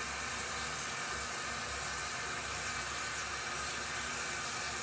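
Steady hiss of water running from a bathroom sink tap.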